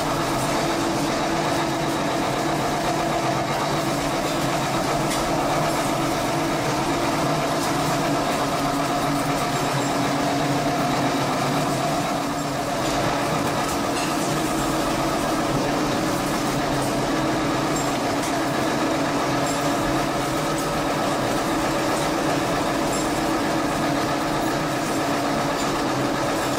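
Steady drone of heavy machinery running: a constant hum of several steady tones over a rushing noise, with no change in level.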